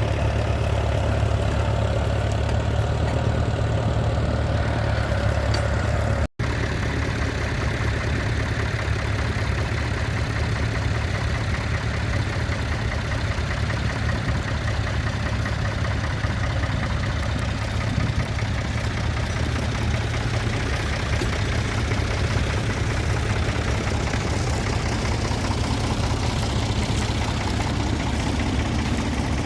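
Tractor engine running steadily at a low, even speed, with a momentary break in the sound about six seconds in.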